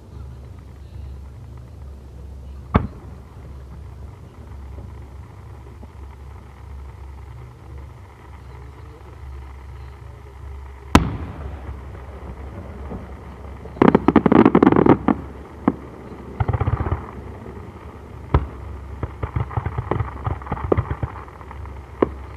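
Aerial fireworks shells bursting, heard from about 500 m away: single sharp booms about three and eleven seconds in, then clusters of rapid crackling bursts from about fourteen seconds on, with more single booms between them, over a steady low rumble.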